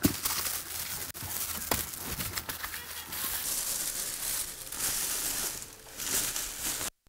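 Plastic packaging bag crinkling and rustling as a monitor is lifted out of its cardboard box and the bag is pulled off, with a few light knocks of handling. The sound cuts off suddenly near the end.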